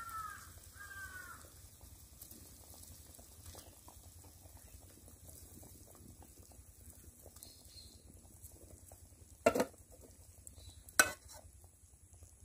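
Mustard and poppy gravy bubbling quietly in a pan as fried hilsa pieces go in. A crow caws twice at the start, and two sharp knocks come near the end.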